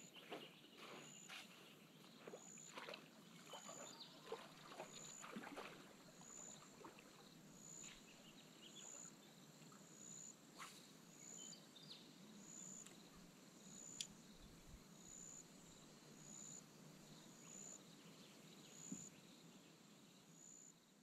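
Near-silent riverside ambience with a faint high chirp repeating about once a second. Soft footsteps on wet mud are heard in the first few seconds.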